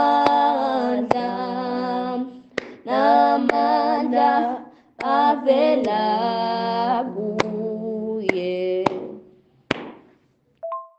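A woman singing a hymn unaccompanied, played back from a WhatsApp voice note, in long held phrases with short breaks and several sharp clicks; the singing fades out near the end, followed by a short two-note electronic beep.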